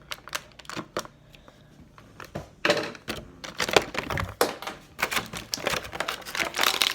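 Plastic action-figure packaging being handled and pulled apart: rapid clicks and crinkling, sparse at first, then denser and louder from a little under three seconds in.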